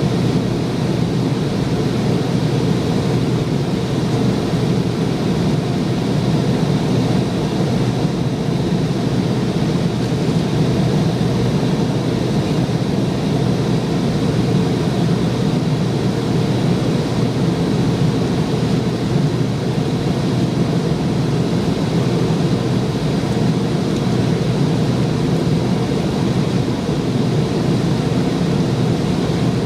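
Steady jet-engine noise inside the cabin of a McDonnell Douglas MD-88, from its rear-mounted Pratt & Whitney JT8D-200 turbofans, a deep even rush with a faint high whine.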